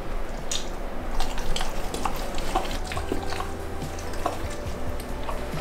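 American Bully mother sniffing and licking her newborn puppy held in a person's hands: soft, scattered small clicks. Quiet background music comes in about halfway.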